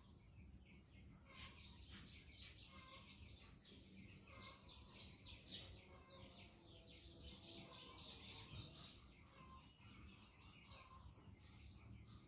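Faint chirping of small birds: quick runs of short high notes, busiest in the middle of the stretch, over a faint low steady hum.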